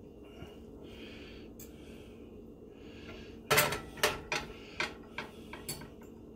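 Utensil clinking against a ceramic dinner plate as meat is put onto it: a string of about six sharp clinks starting about halfway in, the first the loudest. A steady low hum runs underneath.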